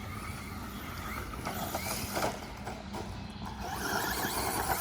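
Traxxas Rustler 2WD RC car being driven on dirt: its electric motor whines, rising and falling in pitch, and gets louder near the end, over a steady low rumble.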